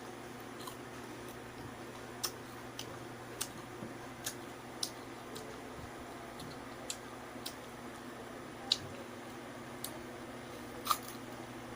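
Wet mouth sounds of someone eating ripe mango: scattered sharp lip and tongue clicks and smacks at an irregular pace, over a steady low hum.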